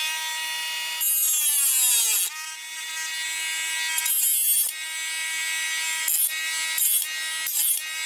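Dremel rotary tool with a cutting bit whining at high speed as it cuts a guideline into the plastic base of a projection-TV lens. Its pitch sags for about a second as the bit bites in, then recovers, and the sound breaks off briefly a few times.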